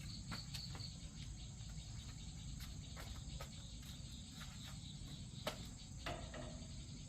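Insects, crickets, chirping steadily in a high, thin drone, with scattered faint clicks and taps, the sharpest about five and a half seconds in.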